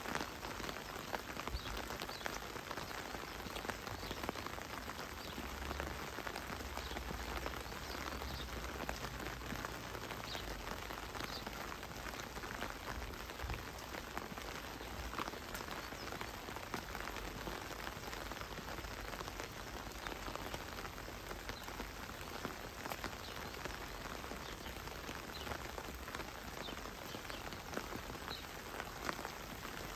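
Heavy rain falling steadily: a dense hiss of drops with many separate little drip ticks. A low rumble sits underneath for several seconds in the middle.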